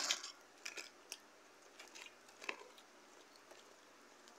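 A few faint, scattered clicks and soft rustles as a small plastic-wrapped snack is handled and eaten.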